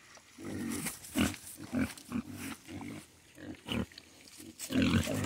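Young pigs grunting: a string of short, low grunts, growing louder near the end.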